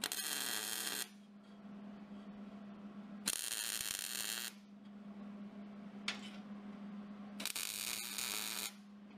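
MIG welding with a Hobart Handler: three short bursts of arc crackle, each about a second long, with a brief strike just before the last, over a steady low hum.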